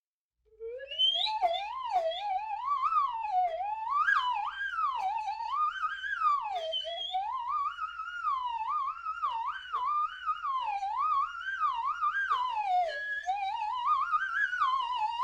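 Slide whistle played in one long unbroken run, its pitch sliding wildly up and down with a quick wobble, starting about half a second in.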